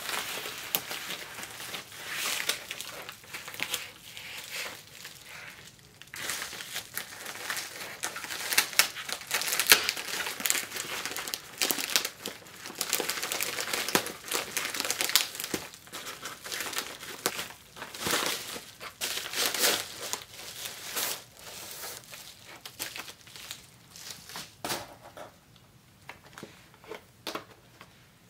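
White plastic shipping mailer and packaging crinkling and rustling as hands pull the contents out and unwrap them, in dense bursts that thin to scattered crackles near the end.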